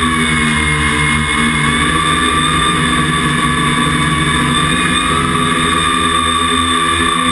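Camera drone's electric motors and propellers, heard from the aircraft itself: a loud, steady multi-pitched whine over rushing noise, the pitches shifting slightly as it manoeuvres.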